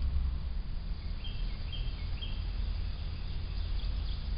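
A bird calling a short, high repeated note about twice a second, starting about a second in, over a steady low rumble in the trail camera's microphone.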